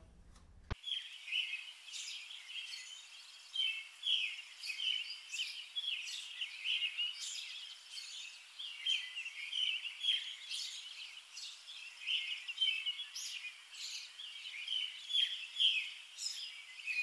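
Many small birds chirping in a busy, continuous chorus of short high calls, which starts abruptly about a second in.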